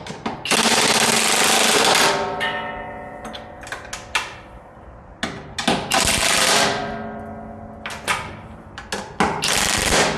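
Impact wrench driving bolts in three bursts of rapid hammering: about half a second in, around five seconds in, and near the end. Metal clinks and ringing knocks come between the bursts as the Grade 8 bolts holding the UHMW polyethylene cutting edge are tightened down.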